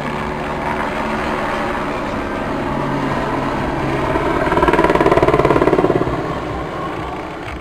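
Eurocopter AS350 B3 Ecureuil, a single-turbine helicopter with a three-bladed main rotor, flying a display overhead. Its turbine and rotor noise grows louder and peaks about five seconds in with a rapid beating rotor chop as it banks, then fades.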